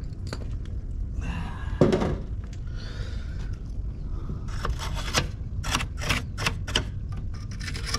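Metal and plastic clicks, knocks and scrapes from hands and a tool working inside a residential breaker panel, with one louder knock about two seconds in and a quick run of sharp clicks in the second half.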